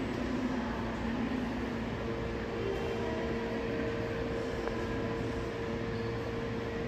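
Steady hum of a subway train standing at the platform, with its air conditioning and onboard equipment running. A low steady tone gives way to a higher one about two seconds in.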